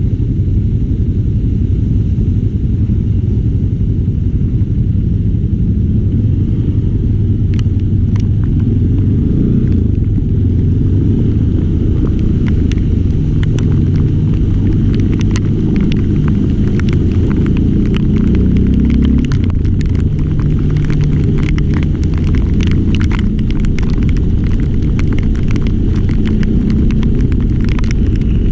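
Steady low rumble of a vehicle on the move, with wind buffeting the microphone. From about twelve seconds in, rapid sharp taps of raindrops hitting the microphone join it.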